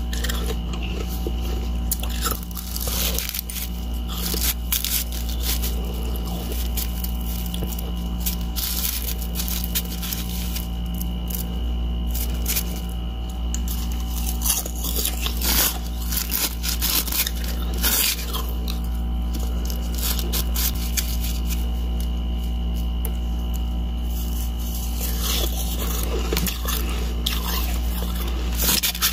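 Hollow balloon-ice shell being handled and pressed by gloved fingers, giving irregular crunches, crackles and snaps of ice, over a steady low hum.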